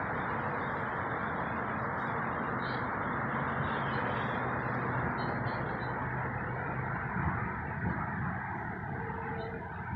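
Steady engine rumble with a low hum that eases slightly near the end, with faint bird chirps above it.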